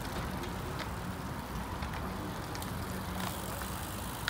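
Road bicycles rolling past at low speed over a steady low rumble, with a few light clicks from the bikes.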